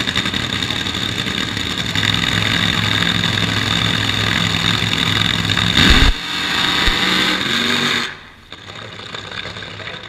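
An engine running steadily at close range, with a brief loud thump about six seconds in. About eight seconds in the engine sound cuts off abruptly, leaving quieter open-air background noise.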